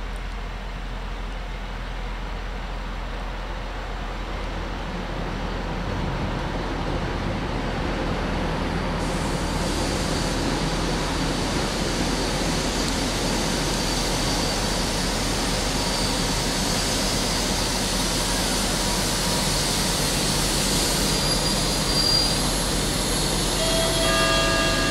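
ČD Class 754 'Brejlovec' diesel locomotive hauling a passenger train into the station, its engine and running gear growing steadily louder as it approaches and slows. High thin squealing tones come in near the end as it brakes to a stop.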